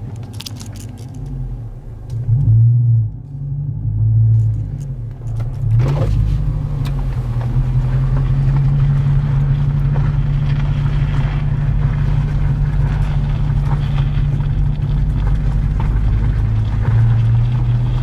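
Dodge Challenger R/T's 5.7-litre HEMI V8 heard from inside the cabin: two brief louder swells a few seconds in, then a steady low drone as the car drives.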